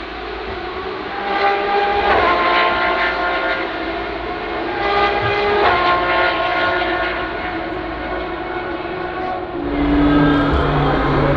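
Supercar and track-car engines running hard around the race circuit, heard at a distance: the engine sound swells twice, its pitch climbing and dropping through gear changes, then a deeper engine note grows louder near the end as another car approaches.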